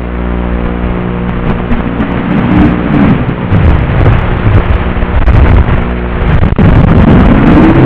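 Mini racing quadcopter's motors and propellers buzzing in flight. The pitch holds steady at first, then swoops up and down several times as the throttle changes, with wind rushing on the microphone.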